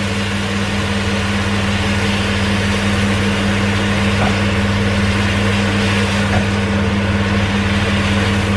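Kitchen range hood extractor fan running with a steady hum and rushing hiss. A light tap or two from a spatula in the pan comes partway through.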